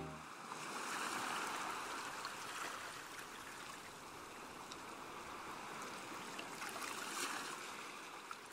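Ocean ambience recording: a soft, steady wash of water with a few faint crackles, swelling and easing gently and fading toward the end.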